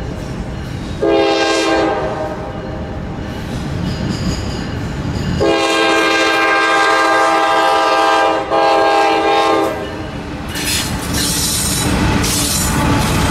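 Norfolk Southern freight locomotive's air horn sounding a short blast about a second in, then a long blast of about four seconds, typical of the end of a grade-crossing signal. As the horn stops, the lead locomotives pass with engine rumble, wheel noise and a high-pitched hiss.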